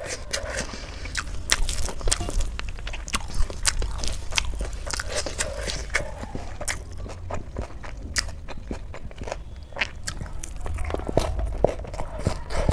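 A person chewing and eating close to the microphone, with many irregular sharp mouth clicks and crunches.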